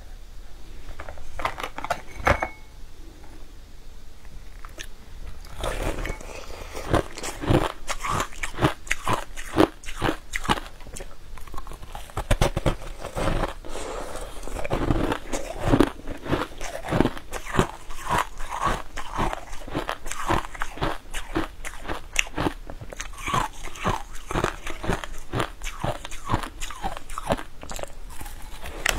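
Close-miked biting and chewing of crunchy, crystal-crusted purple cubes, with many irregular crisp crunches. There are only a few clicks in the first five seconds, then dense crunching from about six seconds in.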